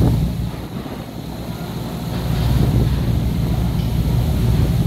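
Wind rumbling on the microphone over the low drone of a boat under way, getting louder a little over two seconds in.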